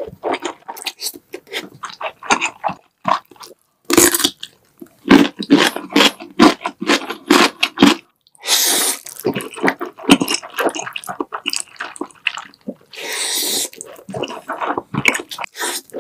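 A person eating black bean noodles: several long wet slurps between runs of chewing and lip smacks.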